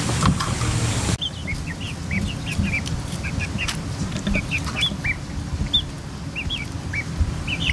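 Young chickens peeping: many short, high chirps, several a second. About a second in, a hissing background cuts off abruptly before the peeping starts.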